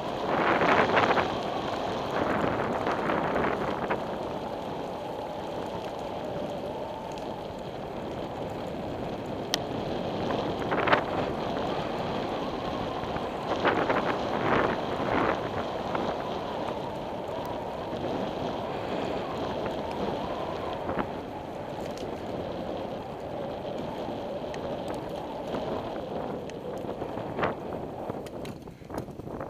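Wind noise on the microphone of a camera carried on a moving bicycle, a steady rush with tyre rumble, broken by a few short knocks and rattles from bumps in the path.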